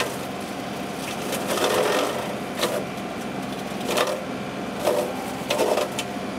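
Loader-mounted hydraulic rotary mower chopping into tree limbs: a steady running hum from the tractor and spinning mower, broken by irregular sharp cracks and snaps as the blades hit and break wood, about seven of them.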